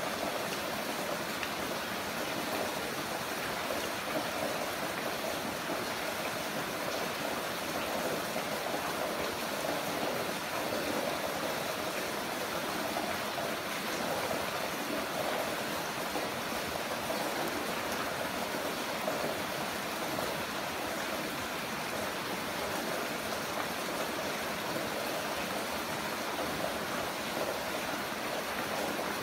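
Heavy rain falling in a steady, even rush with no breaks.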